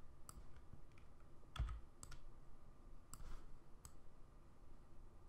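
Faint, scattered clicks of a computer mouse and keyboard during digital drawing, a handful spread over about four seconds.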